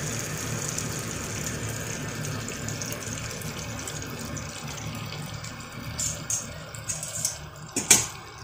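Broth with bean sprouts boiling in an aluminium pot on a gas burner: a steady bubbling hiss. A few sharp clinks near the end, the loudest just before it ends.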